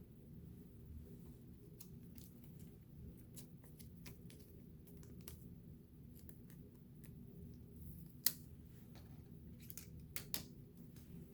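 Trading cards being handled and flipped through: light flicks and slides of card stock, with a sharp click a little past the middle and two more near the end, over a steady low hum.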